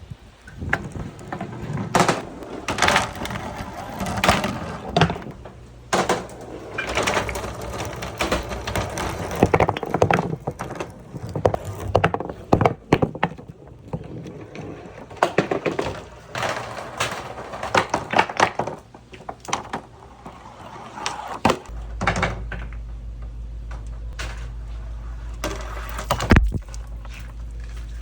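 Marbles and billiard balls rolling down wooden tracks and rain-gutter channels of a marble run, a rolling rumble broken by many clacks and knocks as they hit turns and drops. A steady low hum comes in about two-thirds of the way through.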